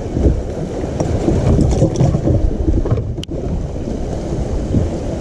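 Wind buffeting the microphone in gusts, an uneven low rumble, with a single sharp click about three seconds in.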